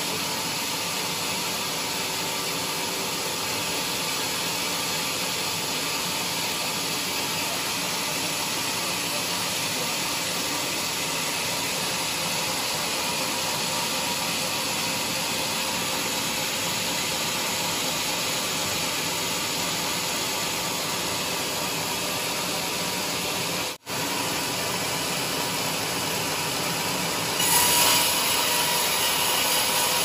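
Band sawmill blade cutting lengthwise through a large squared teak log, a steady sawing noise. It drops out for an instant about three-quarters of the way through, and near the end it grows louder with a steady whine added.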